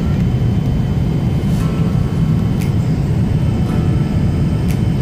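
Steady low rumble of an airliner cabin in flight: jet engine and airflow noise, constant and unchanging.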